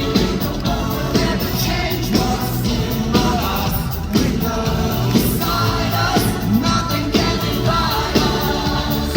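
Male pop singer singing live with a full rock/pop band backing him, drums keeping a steady beat, as heard in the hall during a concert.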